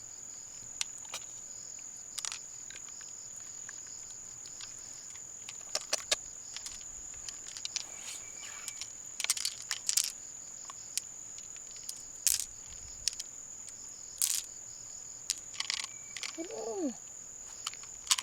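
A steady high-pitched whine like an insect's trill, with scattered sharp clicks and scrapes of handling. A short gliding pitched sound comes near the end.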